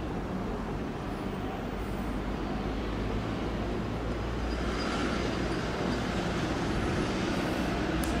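Steady low hum of a CP 1400-class locomotive's eight-cylinder English Electric diesel engine as it slowly moves a CP electric unit along the track, with the noise of the train rolling growing louder from about halfway. A short click near the end.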